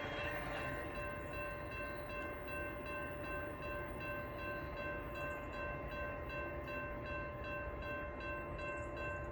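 CSX freight train on the line: a low rumble under several steady high tones held through the whole stretch, with a faint regular ticking.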